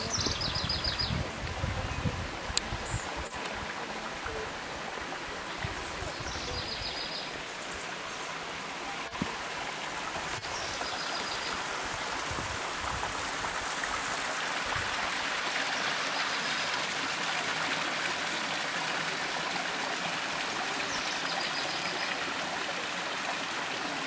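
Sycamore Canyon Falls' thin stream of water running and trickling over rock ledges into a pool, a steady hiss of water. Wind buffets the microphone for the first few seconds.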